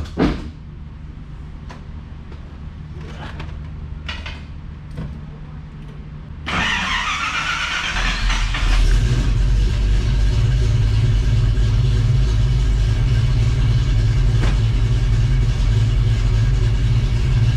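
After several seconds of a low hum and a few light clicks, the 5.0 Ford Mustang V8 cranks over on the starter with a rising whine about six seconds in. It catches about a second and a half later and settles into a loud, steady idle, running on a Holley Terminator X whose idle air control motor is known not to be working.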